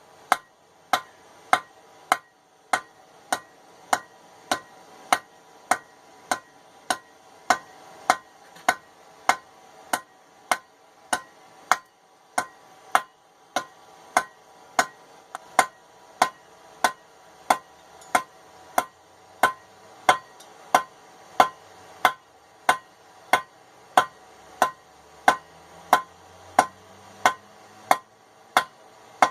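Hand hammer striking hot 3/8-inch steel bar on an anvil in a steady rhythm, a little under two blows a second, each blow with a bright anvil ring. The bar is being drawn out to a long taper.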